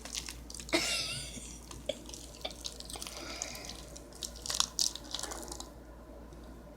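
Sticky, half-set glue slime being kneaded by hand: scattered small wet clicks and squelches that thin out near the end.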